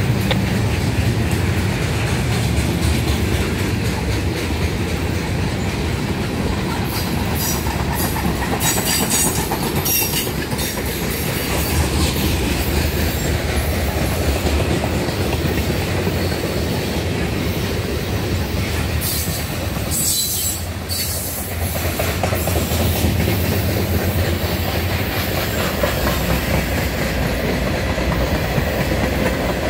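Freight cars of a mixed freight train rolling past at close range: a steady rumble of steel wheels on rail with quick clickety-clack over the rail joints. Brief high wheel squeals come twice, about a third of the way in and again about two-thirds in.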